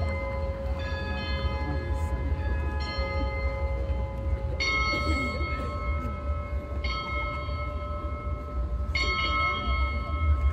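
The son et lumière soundtrack playing over loudspeakers: sustained chords of steady tones, with a new chord coming in every two seconds or so, over a low rumble.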